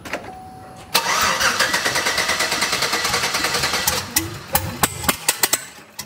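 Chevrolet Silverado's 5.3 L LS V8 cranking and catching on open turbo headers with no turbos fitted: a brief whine, then about a second in it fires up loud and runs for some three seconds before breaking into irregular sharp pops and cracks. The popping is the engine still firing after the key is cut, dieseling on excess fuel.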